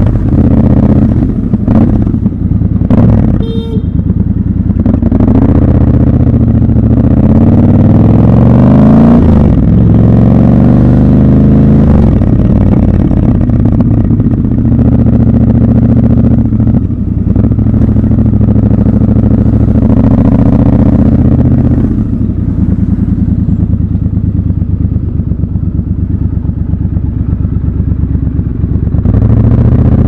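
Triumph Scrambler 1200 XC's 1200 cc parallel-twin engine running at low speed, picking up revs in rising pulls about a third of the way in, then running steadily at low revs, and revving up again near the end.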